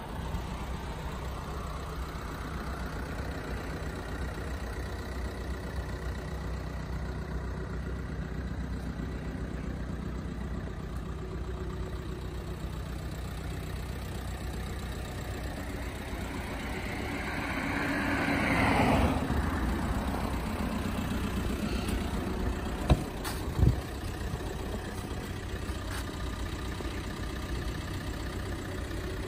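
Volkswagen Sharan 2.0 TDI four-cylinder diesel idling steadily. A louder swell rises and fades about two-thirds of the way through, and two sharp clicks come soon after.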